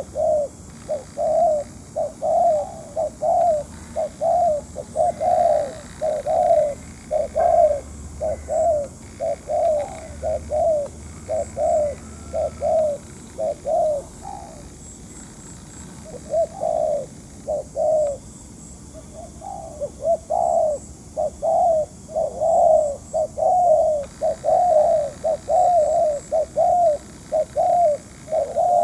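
Spotted dove cooing: a long run of short, quick coos, about two or three a second, breaking off briefly twice near the middle.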